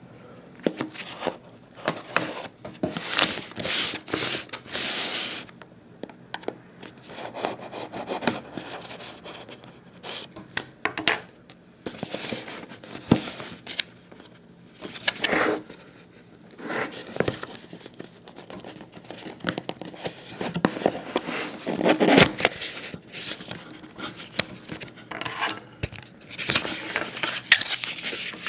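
Cardboard tablet packaging being handled: a printed outer sleeve rubbing and scraping as it is worked off a plain brown cardboard inner box, in irregular swishes with small knocks and clicks.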